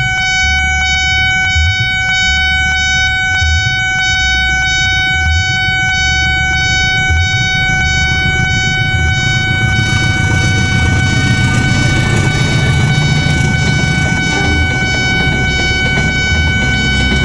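Level-crossing alarm of the Nippon Signal Japan type sounding loud and steady at a crossing with Alkmaar-model barriers, while a passenger train approaches and passes, its rumble building from about halfway through.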